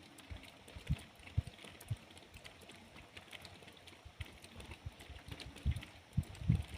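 Rain falling, with scattered drops ticking and irregular low thumps that come thicker near the end.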